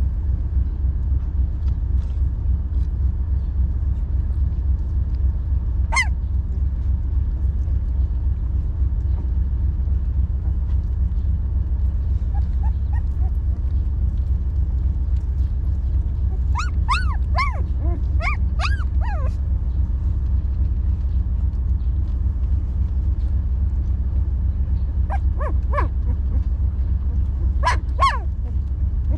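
Puppies whimpering and yelping in short high-pitched cries: one about six seconds in, a run of several around the middle, and a few more near the end, over a steady low rumble.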